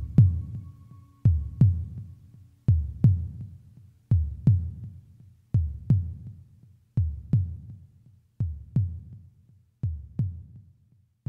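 Heartbeat sound effect in a music track: paired low thumps, lub-dub, about every 1.4 seconds, slowly growing fainter. A held tone dies away about a second in.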